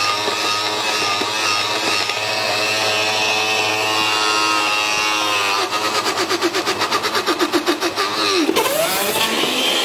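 Countertop blender running, its motor whirring steadily with a pitch that shifts slightly as it mixes; in the second half the sound pulses rapidly, several times a second.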